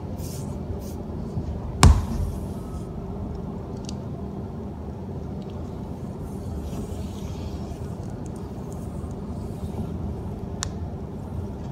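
Hand work with a tyre-plug tool being forced into a puncture in a motorcycle tyre's tread: a steady low rumble of handling noise, one sharp knock about two seconds in and a light click near the end.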